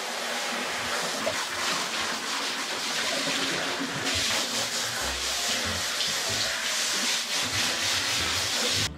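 Handheld shower head spraying water over a wet dog's coat and into the bathtub: a steady hiss of running water that cuts off abruptly near the end.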